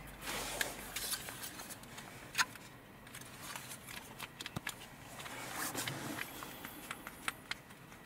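Faint handling noise from a plastic power window master switch panel turned over in the hands: scattered small clicks and light rustling, one click a little louder about two and a half seconds in.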